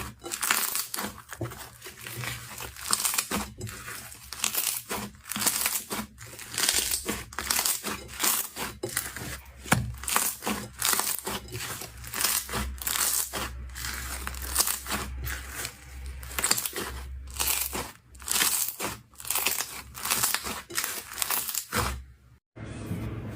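Slime being squeezed and pressed by hand, making a run of short, crinkly squishes about one or two a second. They stop abruptly shortly before the end.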